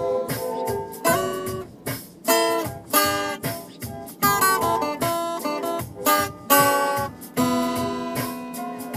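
Acoustic guitar music: chords strummed and plucked with sharp attacks, each ringing on briefly before the next.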